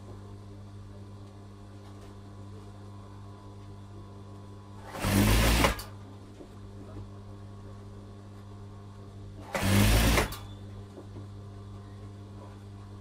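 Industrial lockstitch sewing machine stitching through fabric in two short runs, each under a second, about five and about ten seconds in. A steady low hum continues between the runs.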